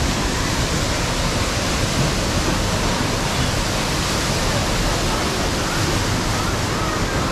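Artificial rock waterfall pouring into a pool, a steady rush of falling water.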